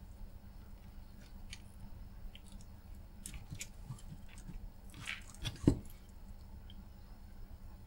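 Faint, scattered small clicks and taps of tools being handled against a circuit board during desoldering work, with a louder knock about five and a half seconds in, over a low steady hum.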